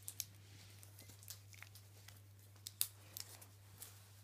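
A puppy tearing and crinkling wrapping paper off a present with its teeth: scattered short rips and rustles, the loudest a little under three seconds in.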